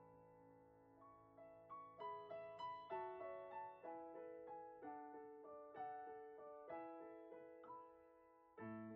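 Quiet solo piano music: slow single notes struck one after another, each ringing and fading, with a fuller low chord struck near the end.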